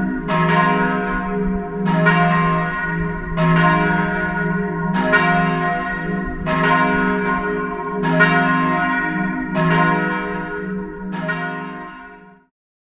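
Church bells ringing, with a fresh strike about every second and a half and a low hum ringing on between strikes. The ringing fades out near the end.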